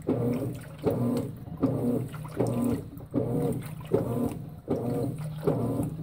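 Consul 16 kg top-load washing machine agitating a duvet in water: the motor whirs in regular strokes about every three-quarters of a second as it swings the load back and forth, with water sloshing in the drum.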